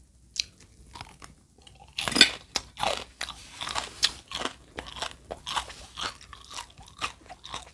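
A person chewing crispy salt-fried bánh chưng (sticky rice cake) cubes close to the microphone: an irregular run of sharp crunches that grows dense about two seconds in, the sound of the fried crust being crisp.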